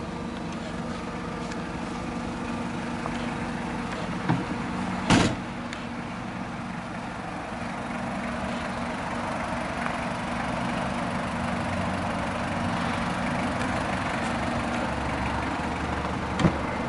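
A Toyota Land Cruiser Prado's 1KZ-TE 3.0-litre four-cylinder turbo diesel idling steadily. A door shuts with a sharp bang about five seconds in, just after a smaller click. Near the end a door latch clicks open.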